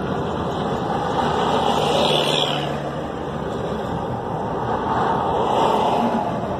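Steady road noise of a car driving at highway speed, heard from inside the cabin: tyre and engine noise that swells slightly twice.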